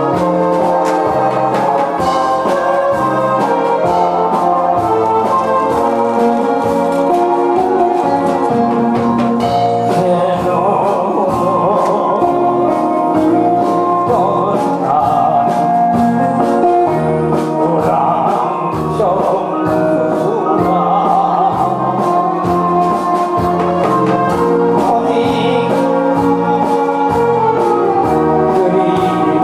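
Recorded backing music with a steady beat and brass; a man begins singing over it into a microphone about ten seconds in.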